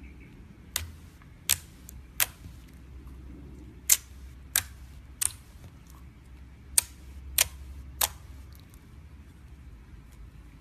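Nine sharp clicks in three groups of three, about two-thirds of a second apart within each group, over a low steady rumble.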